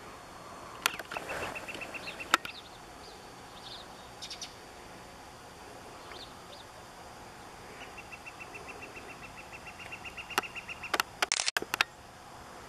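A bird trilling in rapid, evenly spaced high notes, briefly about a second in and again for about three seconds later on. Sharp clicks stand out above it, the loudest near the start and a quick cluster near the end.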